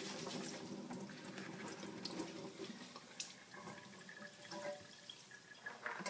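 Water from the kitchen tap running into a pan of drained spaghetti, rinsing off starch. It tapers off over the second half, with a few light clicks.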